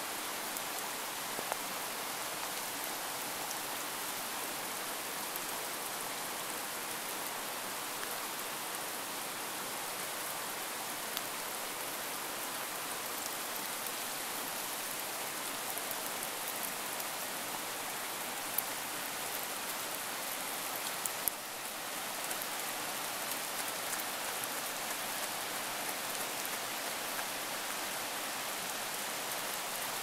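Steady, even hiss of running water with a few faint ticks like drips.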